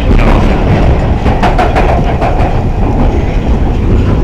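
London Underground Piccadilly line train running through its deep-level tunnel, heard from inside a carriage: a loud, steady rumble of wheels on rails. A run of rattling clicks comes about one to two and a half seconds in.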